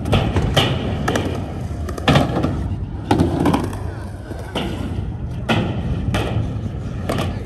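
Skateboard wheels rolling on concrete with a steady rumble, broken by sharp clacks about once a second.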